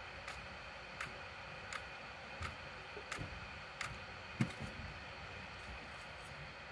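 Computer mouse clicking at a steady pace, about three sharp clicks every two seconds, as the page is scrolled, with a dull knock about four and a half seconds in.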